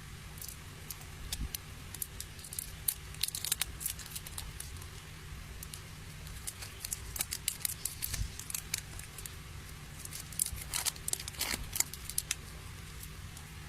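Plastic wrapping and packaging crinkling and tearing as photocards are unpacked by hand, in scattered sharp crackles and clicks. The crackles come in two spells with a short lull about six seconds in.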